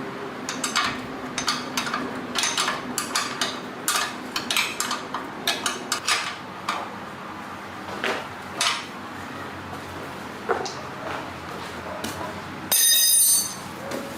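Irregular clinking and tapping of metal tools and parts on metal, with a loud hiss lasting about a second near the end.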